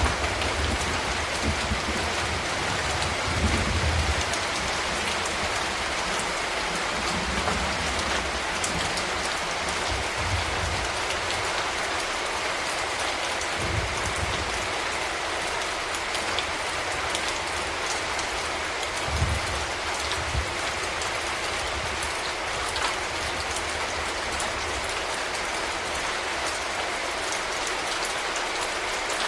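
Steady rain falling, a dense even patter, with a few brief low rumbles underneath.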